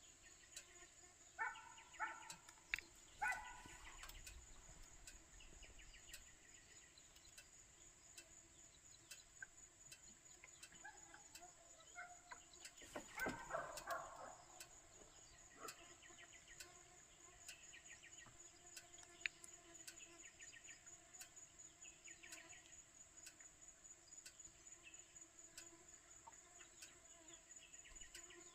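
Faint, steady high-pitched insect trilling, like crickets, through the whole stretch. A few short calls come over it near the start and again about halfway.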